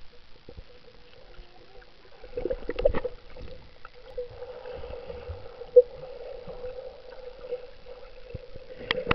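Muffled underwater sound of a swimmer moving close to the microphone: sloshing and bubbling water over a steady hum, with a cluster of sharp knocks about three seconds in and a short loud pop near the middle.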